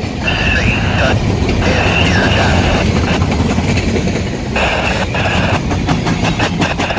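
CN freight train of boxcars rolling past close by, a loud steady rumble of steel wheels on rail. Intermittent high-pitched wheel squeal comes and goes, and near the end the wheels clack rhythmically over rail joints.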